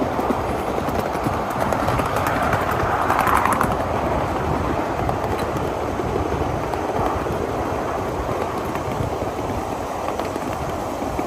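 A 1/8-scale ride-on live-steam train rolling along the track: a steady rumble and rattle of wheels on rail, with a brief cluster of sharp clicks about three seconds in.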